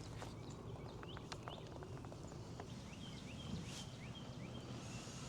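Quiet open-air background with a few faint clicks in the first half, then a small bird calling a quick series of short rising chirps for about a second and a half.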